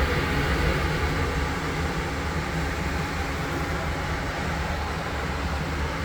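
Gas furnace running: a steady blower rush with a low hum underneath.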